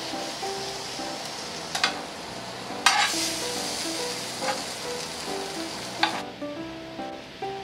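Bamboo shoots sizzling in oil in a hot frying pan while chopsticks lift them out, with a few sharp clicks of the chopsticks against pan and plate. The sizzle stops suddenly about six seconds in.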